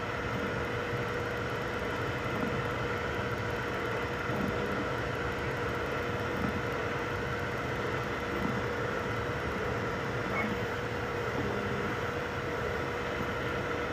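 3D printers running: a steady whir of cooling fans and stepper motors with a few constant tones, and faint small clicks of the print head moving every couple of seconds.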